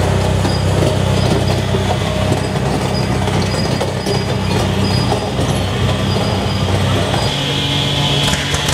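Engine running steadily with a low, even note; a different engine note comes in about seven seconds in.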